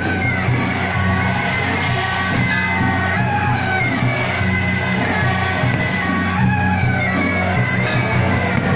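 Loud music with a steady bass and a melody line, over the rapid crackle of aerial fireworks.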